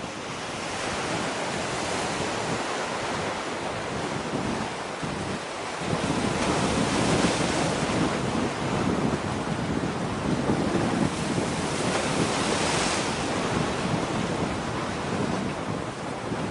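Wind gusting over the microphone, with waves washing at the shore; no ship's engine or horn stands out.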